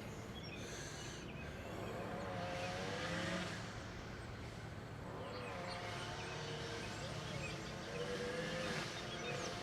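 Faint weed eater (string trimmer) engine running across the river, its whine wavering up and down in pitch as it is throttled, in two stretches about two seconds in and again from about five seconds on.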